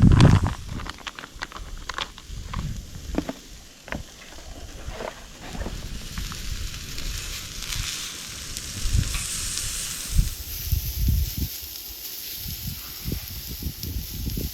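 Marinated meat skewers sizzling as they grill over a campfire, with sharp crackles in the first few seconds and a steadier hiss later, over low dull thumps.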